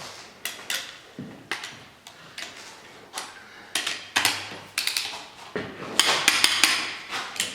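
Wrench clicks and metal clinks from tightening cylinder head bolts to torque in sequence, a run of quick clicks about six seconds in.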